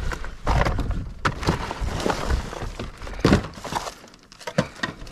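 Rummaging through dumpster junk: irregular knocks, clatters and rustling as pieces of scrap and boxes are shifted by hand.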